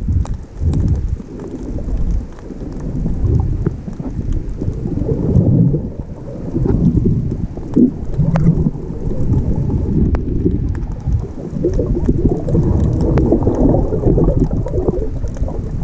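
Muffled underwater rumble of water washing against a camera held below the surface as a snorkeler swims, swelling and fading unevenly, with a few faint clicks.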